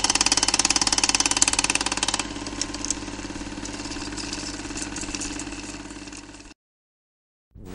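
Film projector running: a rapid, even clatter of the film mechanism over a steady motor hum. It is louder for the first two seconds, then quieter, and stops about six and a half seconds in.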